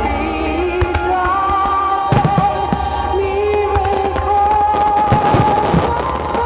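Aerial fireworks shells bursting in a series of sharp bangs, clustered about two seconds in and again around five seconds in, over music with long held notes.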